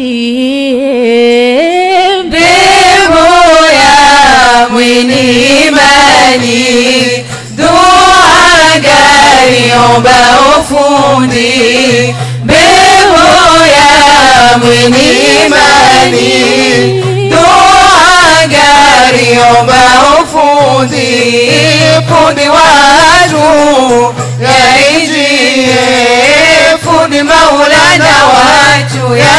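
A group of young women singing a devotional song together into microphones, amplified, over a regular low pulse.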